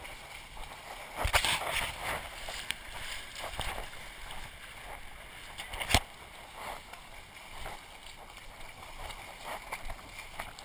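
Water sloshing and splashing as a person wades through a shallow stream, with a louder burst of splashing about a second in and two sharp knocks, one about a second and a half in and one about six seconds in.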